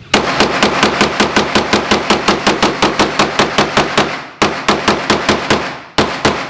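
A firearm with a drum magazine fired in a rapid string of shots, about six or seven a second. The string breaks off briefly about four seconds in and again near six seconds, then resumes.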